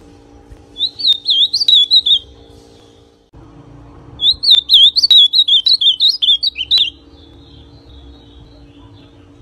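Ultramarine grosbeak (azulão) in brown 'pardo' plumage singing two quick phrases of sharp, warbled notes, the first about a second in and a longer one about four seconds in, then soft twittering.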